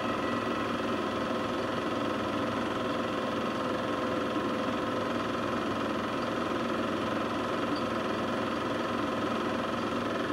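A motor running steadily: a constant hum with several fixed tones over a rough rumble, unchanging throughout.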